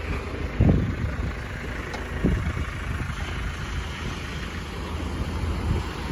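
Outdoor wind buffeting the microphone, with gusts about a second in and again a little after two seconds, over a steady low rumble.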